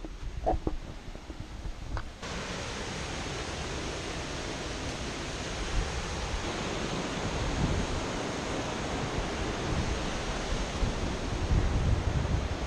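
The steady rushing hiss of a mountain stream tumbling over rocks comes in suddenly about two seconds in, after a few short knocks and bumps. Wind buffets the microphone near the end.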